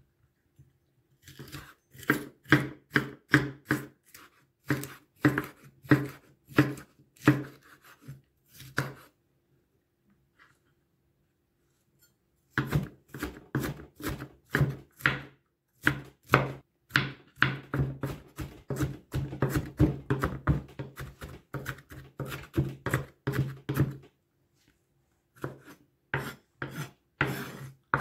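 Kitchen knife chopping a red bell pepper on a wooden cutting board: steady strokes about two a second, a pause of about three seconds, then a faster run of chops dicing it into small pieces. After a short pause the chopping resumes near the end.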